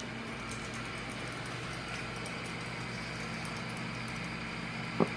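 Steady mechanical room hum, like an air conditioner or fan, with faint light ticks early on and one short knock near the end.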